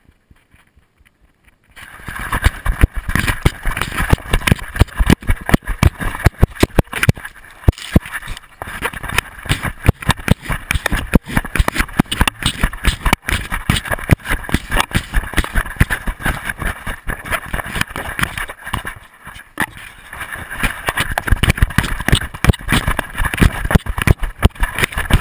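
A collar-mounted action camera jostled and knocked about on a running dog: rapid, irregular thumps and rattles from the dog's galloping strides. It starts about two seconds in, after a short quiet spell.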